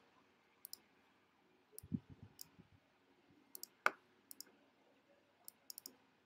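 Computer mouse buttons clicking: scattered single clicks and quick double-clicks, with one louder click about four seconds in. A few soft low bumps come around two seconds in.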